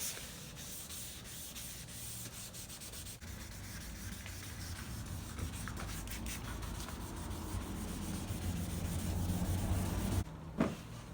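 Sandpaper rubbed by hand back and forth over a yellowed plastic car headlight lens, a steady rasping of continuous strokes that stops about ten seconds in.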